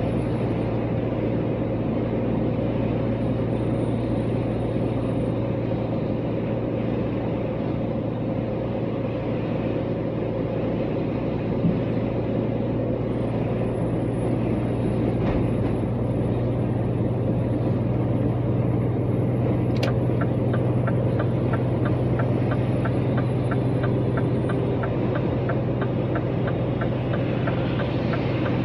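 Steady engine and road noise heard from inside a camper van driving on the motorway, with a constant low hum. About two-thirds of the way through there is a click, then a fast, regular ticking for several seconds.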